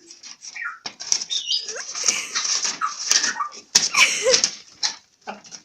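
A cockatoo rustling and crinkling a piece of paper, with sharp clicks and a few short squeaky calls mixed in.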